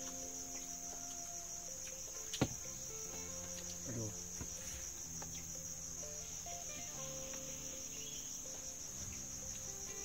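Steady high-pitched chorus of forest insects, with one sharp click about two and a half seconds in.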